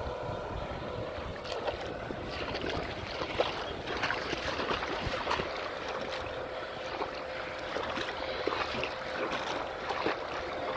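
Tractor engine running steadily as it drives through a flooded field, with water churning and splashing around its wheels and many small irregular splashes.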